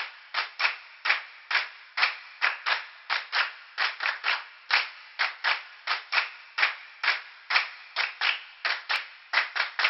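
A series of sharp, dry clacks, two or three a second and unevenly spaced.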